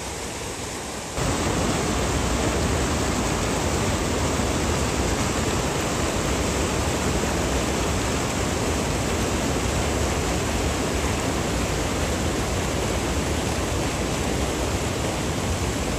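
Flood-swollen, muddy river rushing past in a steady, dense noise that steps up sharply about a second in.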